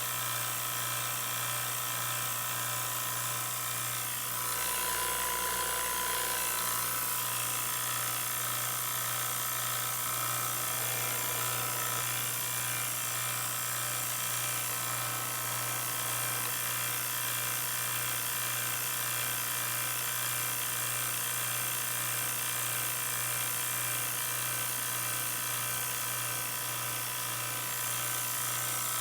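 Electric vacuum pump running with a steady motor drone, pumping air out of a sealed glass jar of water. It is lowering the pressure so that the water boils at room temperature.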